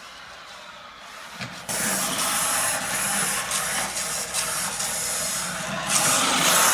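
Rastar 1:14 Ferrari RC car's small electric motor and gears whirring as it drives. The whirring starts about a second and a half in, rises and falls unevenly, and cuts off sharply at the end.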